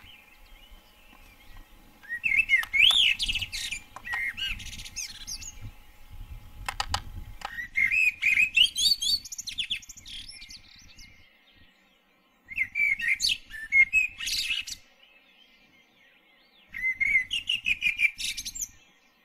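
A songbird singing in four bursts of quick, high chirping notes a few seconds apart.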